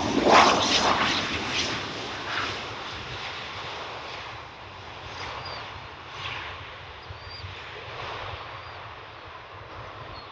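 Boeing 737 jet engine noise, loudest just after the start and then fading steadily as the airliner moves away.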